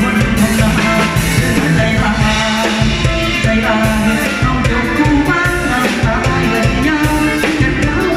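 Live band music through a PA system, playing a Thai song with a steady drum beat and melodic instrumental lines.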